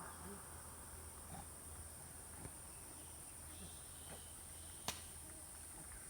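Faint outdoor ambience with a steady, high-pitched insect drone. A few soft ticks and one sharp click come about five seconds in.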